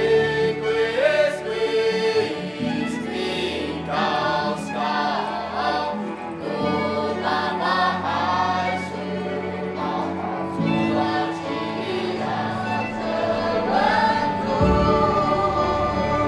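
A youth choir of young men and women singing together in harmony, holding long chords.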